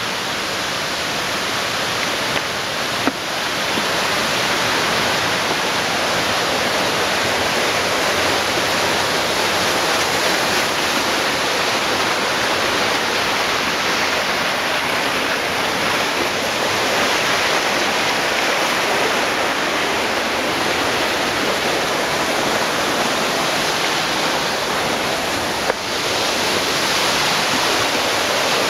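Steady, loud rushing of whitewater in a rocky forest stream running over rapids, with two brief clicks, about three seconds in and near the end.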